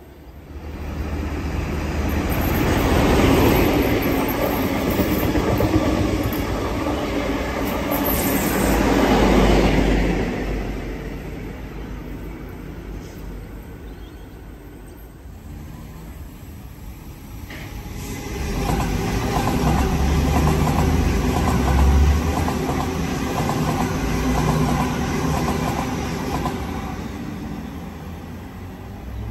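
Two trains pass one after the other. First an XPT diesel intercity train goes by for about ten seconds. After a short lull, a Waratah electric suburban train passes for about eight seconds and then runs away.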